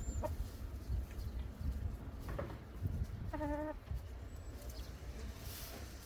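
Chickens calling, with one drawn-out, wavering call about halfway through and a few faint short clucks, over a low outdoor rumble.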